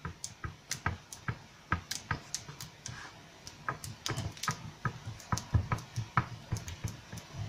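Fingers pressing crumbly biscuit dough flat into a round metal pizza pan, giving irregular light taps and clicks against the pan, a few a second.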